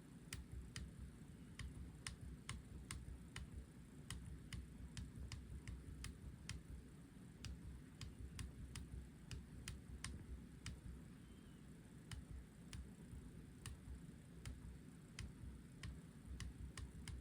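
Small push-button switch clicked over and over at an uneven pace, about two faint, sharp clicks a second, over a low steady hum.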